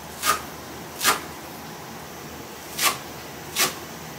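Kitchen knife cutting on a wooden cutting board in single slow strokes: four short cuts, two close together, a pause, then two more.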